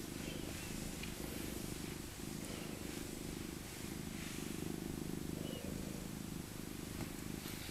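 An old domestic cat purring steadily while being stroked. The purr eases off briefly every couple of seconds as she breathes.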